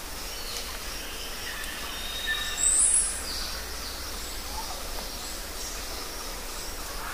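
Forest and jungle ambience: a steady background hiss with faint, scattered bird calls. One loud, high chirp about two and a half seconds in.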